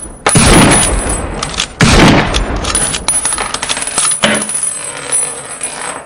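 Intro sound-effect gunshots: two loud shots with long echoing tails a second and a half apart, then a softer hit about four seconds in, with a thin high metallic ring above them.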